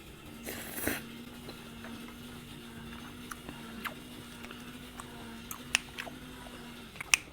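Quiet close-up chewing of rapokki's rice cakes and noodles, with a few sharp wet mouth clicks and smacks spread through it and a faint steady hum underneath.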